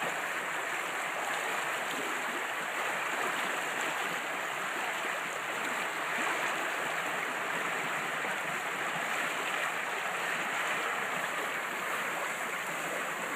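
Water rushing steadily through an irrigation canal's control gate, a constant even wash of sound.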